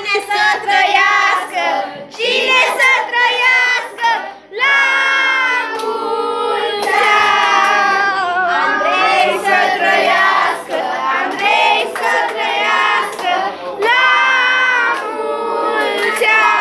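A group of children singing a birthday song together in chorus.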